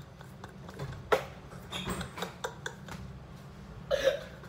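A man's gasping, hiccup-like laughter in short bursts, with a sharp click about a second in and a louder burst of laughter near the end.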